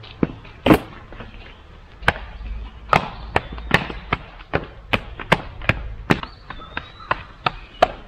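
Rubber concrete stamping mats slapping against a wet stamped slab as workers step on and tamp them: a quick, uneven run of sharp slaps, about two to three a second from about two seconds in, after one loud slap near the start.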